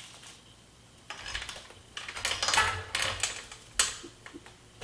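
Metal bike chain and master link being handled: rattling and clinking, with a sharp click near the end.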